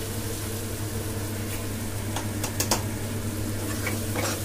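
Steel ladle scraping and clinking against a steel kadhai as thick fried masala is scooped out, with a few sharp clinks, most of them in the middle. A steady low hum from a kitchen appliance or fan runs underneath.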